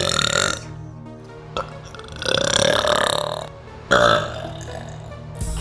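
A girl burping loudly over and over. The tail of one burp fades in the first half-second, then comes a long drawn-out burp, then a shorter one that starts abruptly about four seconds in, and another begins right at the end.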